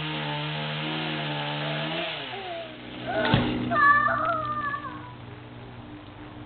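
Two-stroke chainsaw running steadily. About two seconds in its pitch sinks and it runs on more quietly. A single sharp knock comes about three seconds in, followed by a brief high wavering cry.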